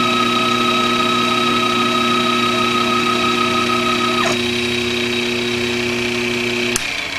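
CNC router running with a steady whine made of several fixed tones; about four seconds in one tone bends down and drops out. Near the end a click, and the rest of the whine stops, its highest tone falling in pitch as the spindle spins down.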